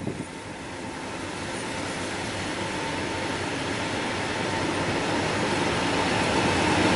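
Class 56 diesel locomotive, with its Ruston-Paxman V16 engine, approaching at the head of a train and growing steadily louder as it nears.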